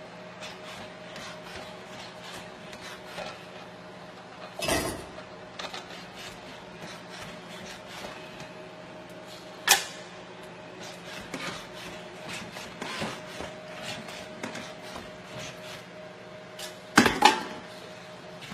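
A Boston Dynamics SpotMini robot's electric motors whining steadily as it works its arm over the sink and dishwasher, with small clicks of its joints and dishes throughout. Three louder knocks come about five, ten and seventeen seconds in.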